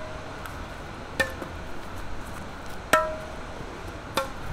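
A badminton shuttlecock hit back and forth with tennis rackets: three sharp strikes, each with a short ringing ping from the strings, about a second and a half apart.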